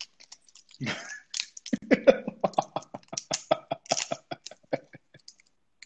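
A man laughing: a quick breath, then a run of rapid laughing pulses that fades out near the end.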